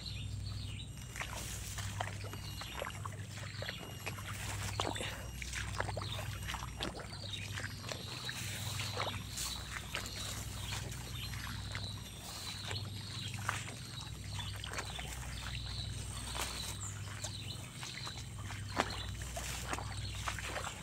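Footsteps walking slowly along a wooden boardwalk over water: a steady run of irregular knocks and taps, with some water sloshing.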